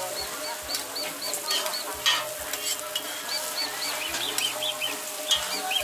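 Burger buns sizzling on a flat-top griddle, with sharp clicks of metal tongs and a spatula against the plate. A bird chirps in quick repeated runs over it, about four chirps a second.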